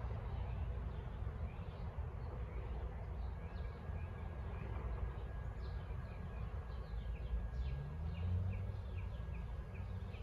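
Small birds chirping in short, quickly repeated notes, busier in the second half, over a steady low rumble of city street traffic. About eight seconds in, a vehicle's engine rises in pitch as it pulls away.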